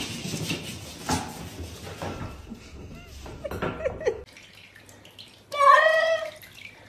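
A wet cat in a bathtub gives one loud, drawn-out yowl of about a second, near the end, after a few seconds of scattered knocks and scuffs.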